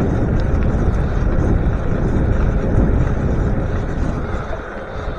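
Wind buffeting the microphone while riding a bicycle along a paved road, a steady low rumble with road and tyre noise. It eases a little near the end.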